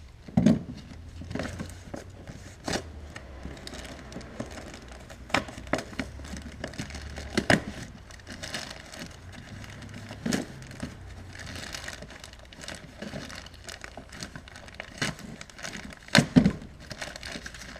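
A parcel being opened by hand: packaging crinkling, rustling and tearing, with scattered sharp knocks and clicks as the contents, a sway bar end link, are handled.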